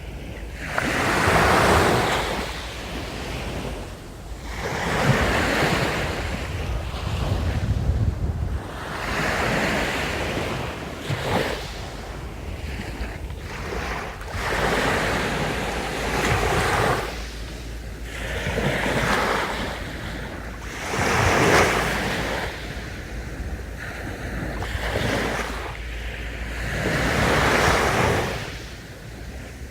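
Sea waves breaking and washing up on a beach, a rushing surge that swells and falls back about every three to four seconds.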